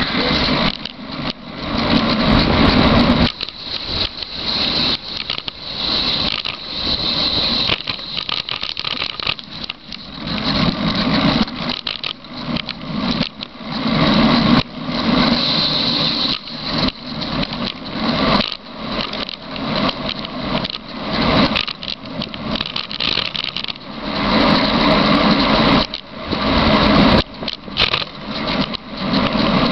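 Wind rushing and buffeting over the microphone as a bicycle coasts downhill, with the bike and mount rattling. The noise swells and drops every second or two, with frequent short knocks.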